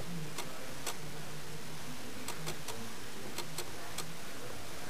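Steady hiss of quiet room tone with a faint low hum, broken by about eight short, sharp ticks scattered through it.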